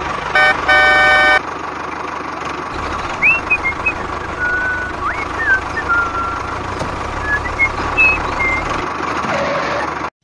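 Two horn toots about half a second in, the second one longer. Then a toy tractor's small electric motor runs with a steady whine and hum as it tows a trolley, with a few short high chirps over it.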